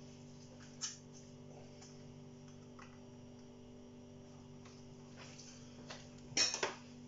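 Induction hob humming steadily under a pan of stew, a few low tones held without change. A single click about a second in, and a quick run of clinks near the end, the loudest sound.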